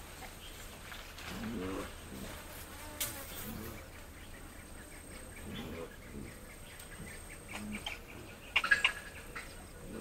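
Mandrills giving short, low grunting calls, one every second or so. A steady faint high tone of insects or birds runs beneath, and a brief, louder, higher-pitched call breaks in about three-quarters of the way through.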